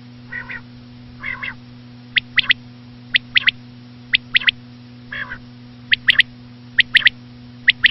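Common quail calling. Three soft, raspy notes come first, then from about two seconds in a run of sharp three-note 'wet-my-lips' phrases, about one a second.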